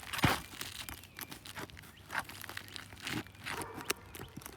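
Asphalt roof shingles crackling and crunching as they are lifted and worked with a flat roof bar, with a sharp knock right at the start and scattered clicks after it.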